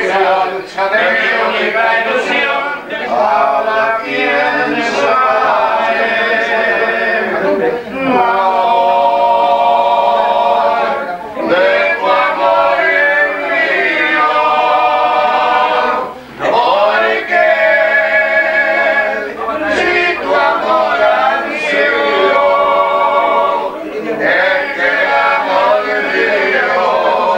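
A group of men singing together in chorus, a Uruguayan murga carnival song, with long held notes and short breaks between phrases.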